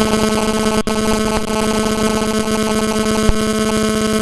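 Loud, steady electrical hum with a buzzy stack of overtones from a PA system, cutting in suddenly. A short low thump about three seconds in.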